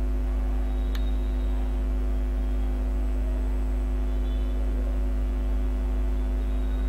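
Steady electrical hum: a strong low drone with several steady higher tones over it, and a single sharp click about a second in.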